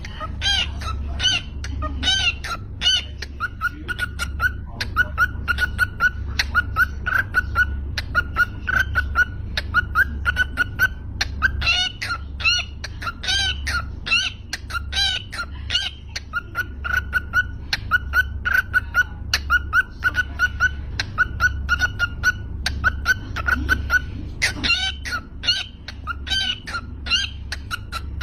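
Cockatiel chirping and whistling in quick, repeated short notes, with a low hum underneath.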